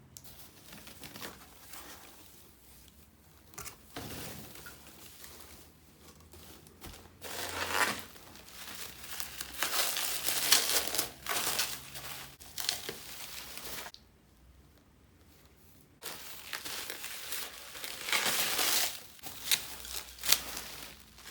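Packaging being handled, crinkling and rustling in irregular bursts, with a short quiet pause about two-thirds of the way through.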